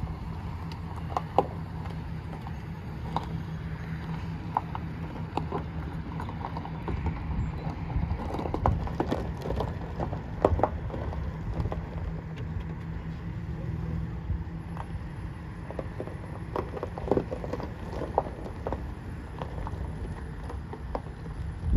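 Chevrolet Silverado pickup's engine running at low speed as the truck rolls slowly over gravel, with the tyres crunching and popping on the stones in scattered clicks over a steady low hum.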